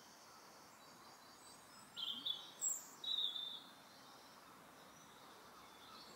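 Birds calling outdoors: faint high chirps over a light background hiss, with a few louder short high calls about two to three and a half seconds in.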